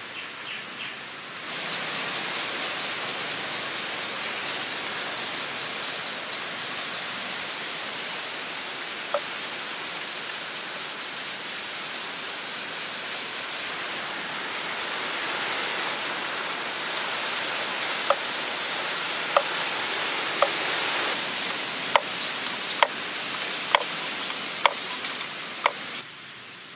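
Steady rushing noise, with a run of sharp knocks from the bamboo water-wheel parts being fitted together by hand, about one a second in the last third.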